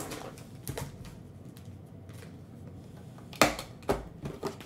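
Foil trading-card packs rustling as they are handled and pulled from a hobby box, then three short knocks in quick succession near the end, the first the loudest, as packs are set down on the table mat.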